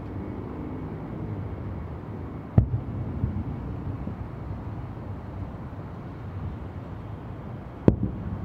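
Two fireworks shells bursting at a distance, each a sharp bang followed by a short rumbling echo, the first about two and a half seconds in and the second near the end, over a steady low background rumble.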